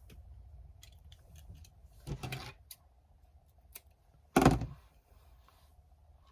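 Small clicks and handling noise of craft pieces being moved on a table, with one sharp knock about four and a half seconds in, the loudest sound, as something is set down.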